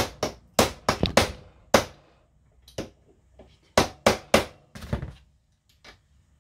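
Hammer blows on metal: about a dozen sharp strikes in irregular clusters, on a tool set in a rusted, seized cross-head screw of a car starter motor to break it loose.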